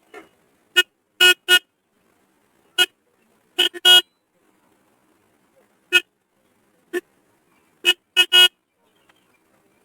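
Car horn sounding in about a dozen short toots, single and in quick pairs and triples, spread over some eight seconds.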